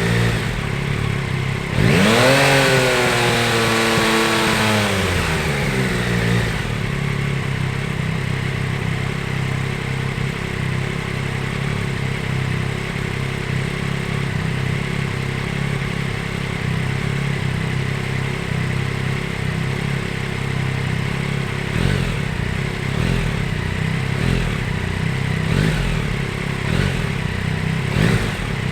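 Yamaha Tracer 9 GT's 890 cc inline three-cylinder engine: the revs jump suddenly about two seconds in and fall away over the next few seconds, then it runs steadily at an even pitch. A few light clicks come near the end.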